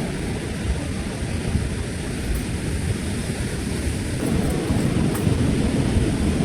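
Wind buffeting the microphone in a steady low rumble, over the wash of ocean surf; it grows a little louder about four seconds in.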